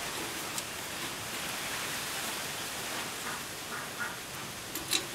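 Steady outdoor hiss with a few light metal clinks as a wire grill rack is set over a clay charcoal stove: one click about half a second in and a sharper pair near the end.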